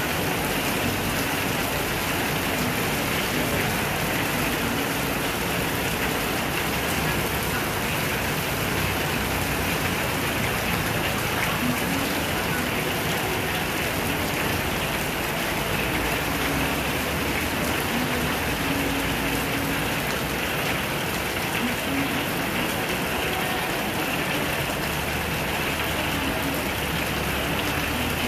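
Heavy tropical rain pouring steadily onto wet pavement and puddles, a dense, even hiss with no let-up.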